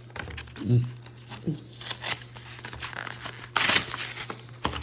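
Pokémon booster pack foil wrapper and trading cards being handled: short crinkling, rustling bursts about two seconds in and again near four seconds.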